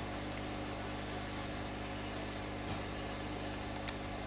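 Steady electrical hum with an even hiss, and a couple of faint clicks.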